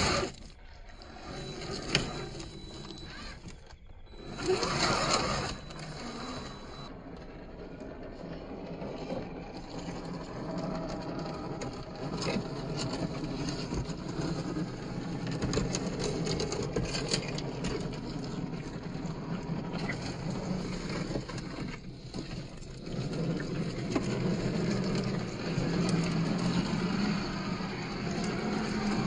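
1/10-scale RC crawler trucks with electric motors crawling over mud and rocks: a low steady drive drone, stronger near the end, with scattered clicks and knocks of tyres and chassis against stones.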